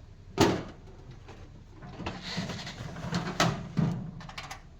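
Heavy, tool-laden metal tool chest drawer being shut and opened on its slides, with a sharp clunk about half a second in, a rumbling slide, and more clunks near the end.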